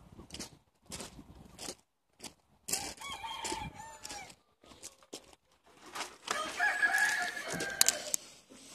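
Roosters crowing from inside a shut chicken house: one crow about three seconds in and a longer one from about six seconds. Before them, footsteps crunch on gravel, and a few sharp clicks come near the end.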